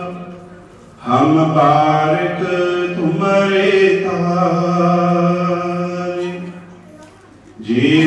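Gurbani kirtan: a voice sings a long drawn-out phrase of a Sikh hymn, holding and bending its notes over a steady low tone. The singing breaks off briefly about a second in and again near the end.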